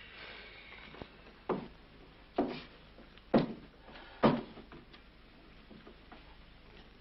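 Four short knocks, evenly spaced about a second apart, over a quiet room background.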